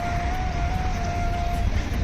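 Background music: a single held melodic note that shifts slightly in pitch, over a steady low rumble of traffic or wind.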